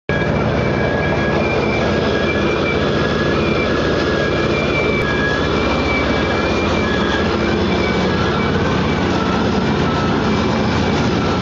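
Drilling rig machinery running loudly and steadily, with a rapid low throb underneath and thin high whines that come and go.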